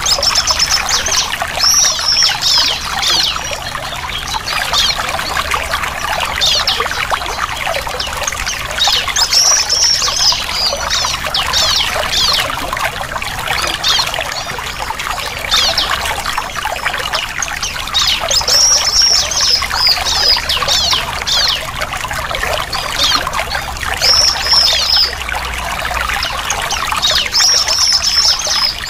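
Ciblek (bar-winged prinia) chirping in rapid high runs, with brighter high-pitched phrases every few seconds, over a steady trickle of running water.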